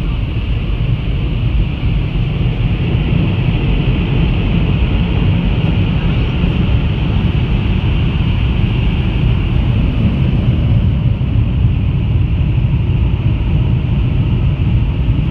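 Steady, loud rushing noise of car wash air blowers, heard from inside the car's cabin.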